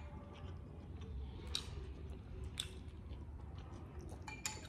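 Two people chewing steamed pork momos (dumplings) with their mouths full, with a few sharp wet mouth smacks and clicks scattered through.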